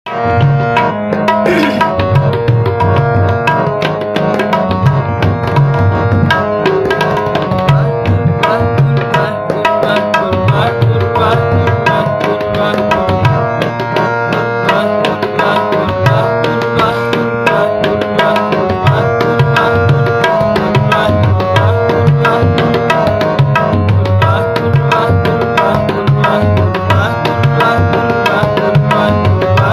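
Sikh kirtan instrumental: tabla playing a steady rhythm under a harmonium holding and moving between sustained notes.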